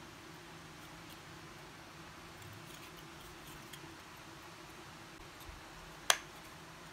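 Thin wooden puzzle pieces clicking softly as they are handled and pressed together, with one sharp click about six seconds in as a piece snaps into place. A faint steady hum runs underneath.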